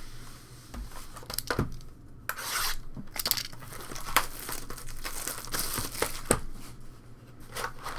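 Trading card pack wrappers crinkling and tearing as packs are opened and cards handled, with a few sharp ticks among the rustling.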